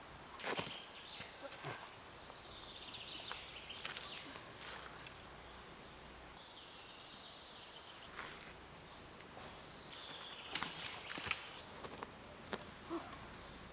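Faint woodland sounds: scattered twig snaps and rustling, busier a couple of seconds before the end, with high chirping bird calls at a few points.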